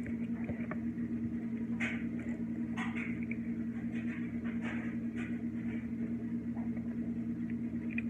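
Steady hum of a clothes dryer running in the background, with short, scattered chewing sounds of someone eating a burger close to the microphone.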